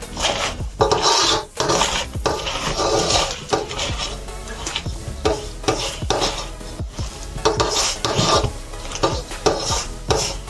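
A hand mixing chopped spinach with gram flour in a stainless steel bowl. It makes a run of irregular rustling, scraping strokes as the mix is rubbed and squeezed against the metal.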